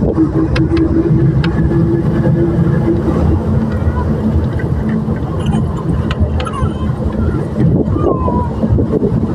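A moving bus's engine and road noise, heard from inside the bus as a steady low rumble.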